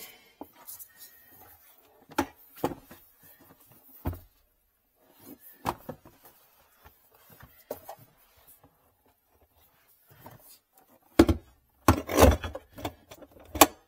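Scattered knocks and thuds of hard plastic trunk parts being handled and set back into the spare-wheel well. A cluster of louder knocks and scrapes comes about eleven to thirteen seconds in, as the round speaker housing is lifted and fitted.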